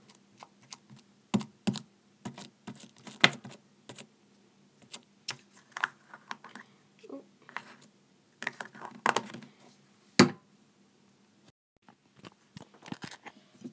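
Irregular clicks and taps of hands handling a small plastic pot of foam-bead slime and pressing its plastic lid on, with a louder tap a little after ten seconds. The phone recording it is picked up near the end.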